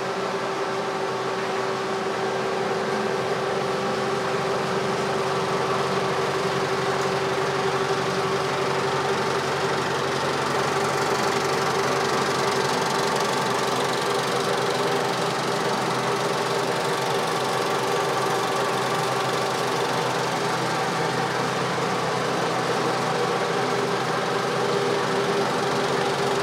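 35mm cinema projector running: a steady mechanical whirr with a constant hum that holds throughout.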